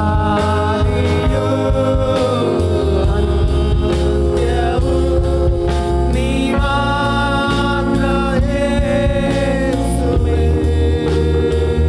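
Kannada Christian worship song: a singer holds long, sustained notes over band accompaniment with a steady bass line and drum beat.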